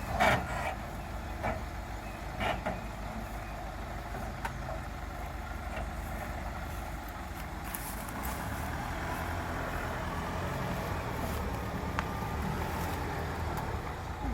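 4x4 off-road vehicle's engine running low and steady at crawling speed, with a few sharp knocks and rattles in the first three seconds, the loudest just after the start.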